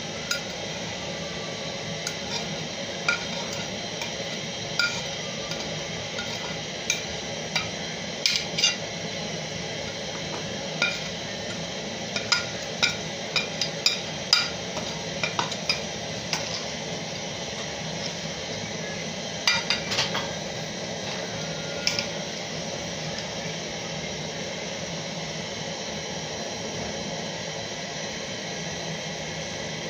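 Metal spoon clinking and scraping against a plate and the rim of a metal cooking pot while seasoning is scraped off the plate into the pot: irregular sharp clicks, thickest near the middle, stopping a few seconds past the two-thirds mark. A steady hiss lies underneath.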